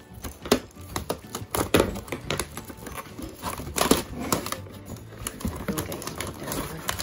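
Plastic shrink wrap crinkling and cardboard rustling as a wrapped box is handled and pulled out of a cardboard shipping box, in irregular crackles.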